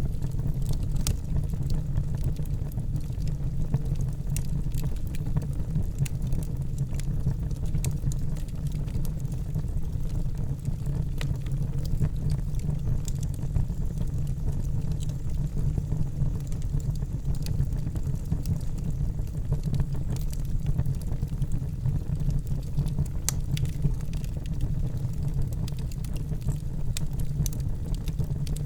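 Wood fire burning in a fireplace: a steady low rumble of flames with many scattered sharp crackles and pops.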